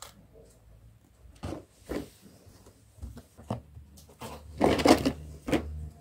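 Plastic storage baskets and their contents being handled: a few soft knocks and rustles, with a louder, longer rustle about five seconds in and a last knock just after.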